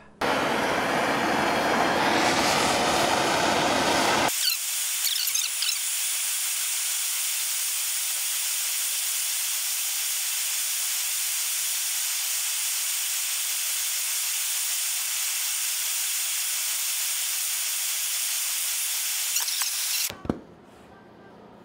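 Two handheld gas torches hissing steadily as they heat a knife blade red-hot for hardening. It is a full rushing hiss for the first few seconds, then a thinner high hiss that cuts off suddenly near the end.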